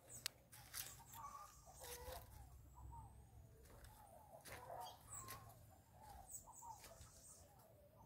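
Faint clucking of a chicken, a soft call repeated a couple of times a second, with light rustling and a few faint high thin whistles.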